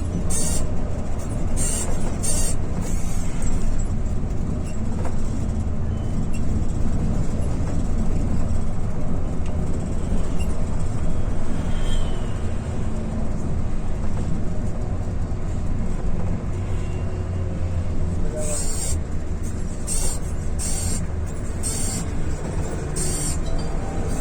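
Volvo bus engine running steadily at low revs in slow traffic, a continuous low hum. Short bursts of hiss come several times in the first few seconds and again in a cluster near the end.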